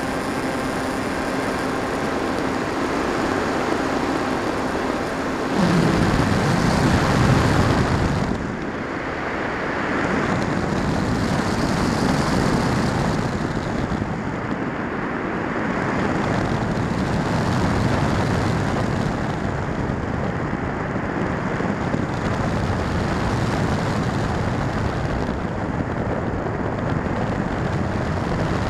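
Air rushing over the onboard camera of a Firstar 2000 V2 FPV glider in flight. A steady whine runs under it and stops about five seconds in. A louder rush of air follows for a couple of seconds, and then the wind noise swells and eases slowly.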